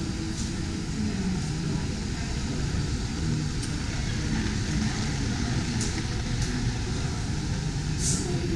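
Steady low rumble of a busy exhibition hall, with indistinct voices in the background and a few light clicks, the most noticeable near the end.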